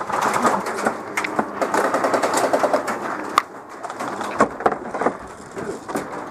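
Airsoft electric gun firing in short bursts: a rapid, even rattle of clicks, densest about two to three seconds in.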